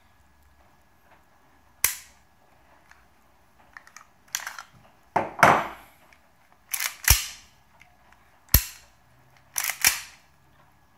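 Sharp metallic clicks and clacks from an airsoft pistol being worked by hand, about six in all: the slide racked and the hammer snapping forward onto a homemade firing pin. One longer rasping clack comes a little past five seconds in.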